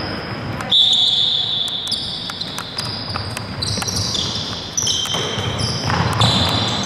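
Players' sports shoes squeaking on a hall floor in long high-pitched squeals, one after another and overlapping, with a loud one starting about a second in, and a ball bouncing in sharp knocks in between.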